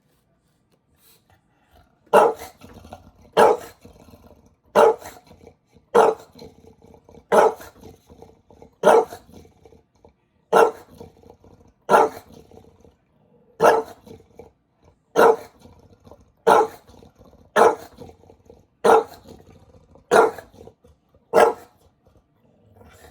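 Bulldog barking over and over, single loud barks about every second and a half, starting about two seconds in.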